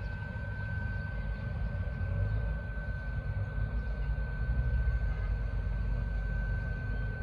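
Low, steady rumble of a distant approaching ZCU20 diesel-electric locomotive heading an express train, with a faint steady high-pitched tone throughout.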